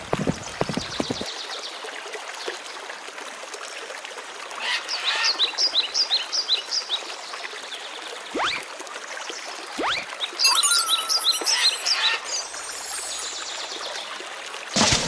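Cartoon sound-effects track: a steady trickle of running water, with a quick run of bird-like chirps about five seconds in, two rising swoops, and another flurry of chirps with a warble a little later.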